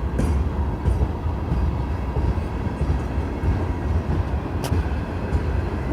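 Union Pacific ballast train rolling slowly in reverse: a steady low rumble from the cars, with a few sharp clicks from the wheels, the loudest about three-quarters of the way through.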